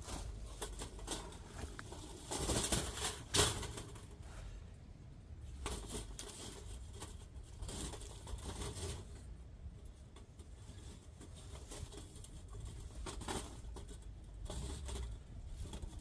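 Irregular rustling, crinkling and tapping of things being handled, with a louder burst about three seconds in.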